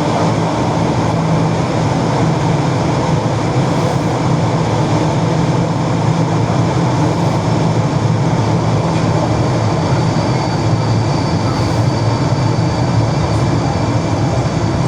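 ED4M electric multiple unit running between stations, heard from on board: a steady, loud rumble of wheels and running gear. A faint high whine joins it for a few seconds about ten seconds in.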